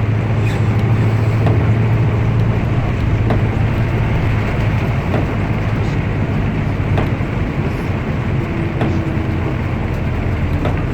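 A 2008 Otokar bus on the move: a steady low engine hum with road noise.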